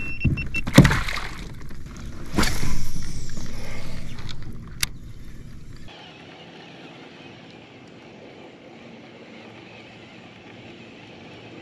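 Water splashing and sloshing beside a kayak as a pike is let back into the water, with a sharp knock about a second in and a click near five seconds. After about six seconds the sound drops suddenly to a faint steady hiss.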